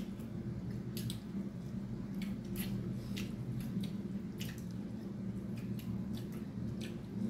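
Close-up mukbang eating sounds: wet chewing and lip smacks, and pork trotter and rice squished and mixed by hand. They come as about a dozen short, irregular clicks over a steady low hum.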